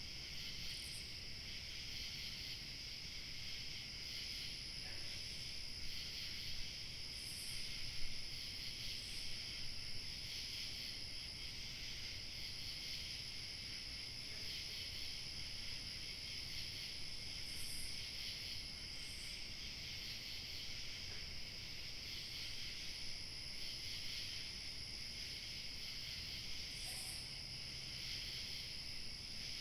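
Evening chorus of crickets chirping steadily, with a higher-pitched insect trill coming and going above it. Underneath is a faint low rumble of light wind.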